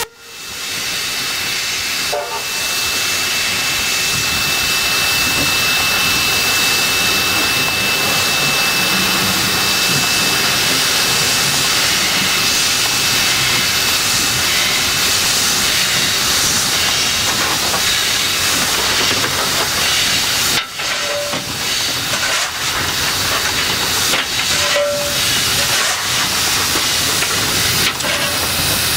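Steam locomotive NM25 on the move, heard from beside its boiler: a loud, steady steam hiss that fades up over the first second.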